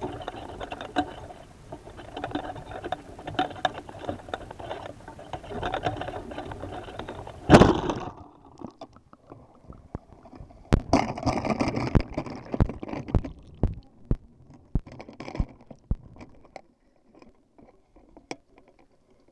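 A Casio FR100 camera lowered on a fishing line: clicking and rustling above the water, then a loud splash about seven and a half seconds in as it plunges under. After that the sound turns muffled and underwater, with scattered knocks and some bubbling.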